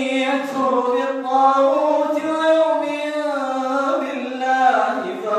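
A man reciting the Quran in a melodic chant, one voice holding long, slowly bending notes.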